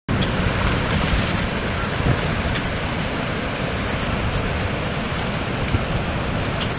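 Steady rush of fast-flowing river water running over rocks.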